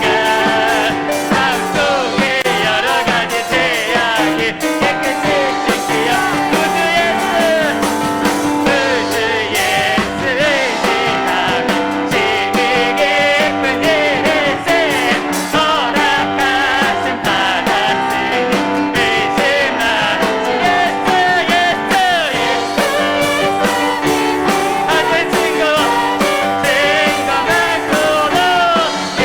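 Live worship band playing a praise song: voices singing over piano and drums.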